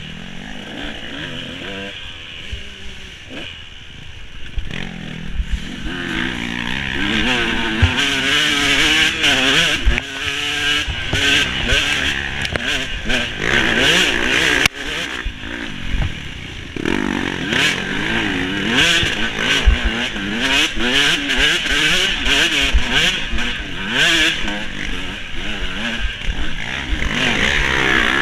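Off-road dirt bike engine revving up and down over and over, growing louder about six seconds in, with scattered thumps and clatter from the bike over rough trail.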